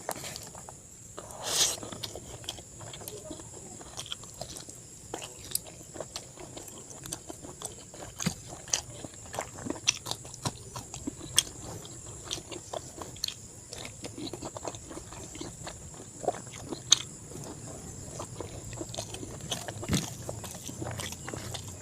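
Close-miked eating: irregular wet smacks and clicks of chewing pork curry and rice, with a louder burst about a second and a half in.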